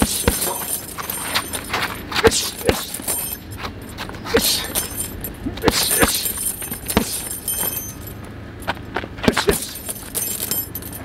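Boxing gloves punching a filled RDX heavy bag in quick combinations: sharp thuds at irregular intervals, in flurries of several hits, with the bag's hanging chain jingling after many of them.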